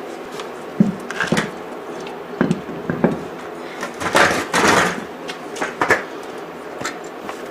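A truck wheel being handled and fitted back onto its hub: a string of separate knocks and clunks, with a longer scraping rush about four seconds in.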